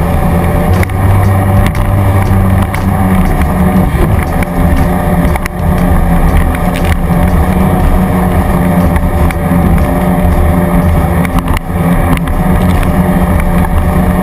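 Jet ski engine running loud and steady, with a heavy low rumble and a few short knocks.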